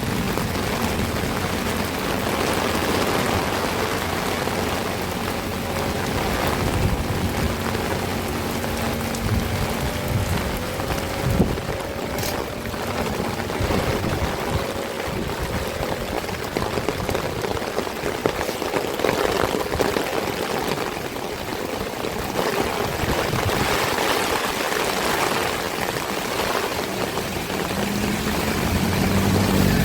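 Heavy rain pouring steadily. Near the end a low engine hum comes in under the rain.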